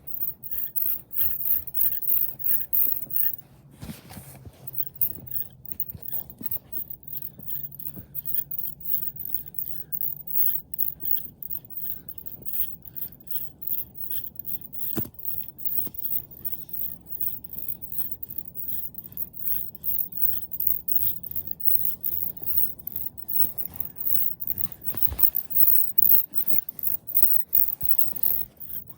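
Plastic speed cube being turned rapidly, its layers scraping and clicking in a quick run of several turns a second.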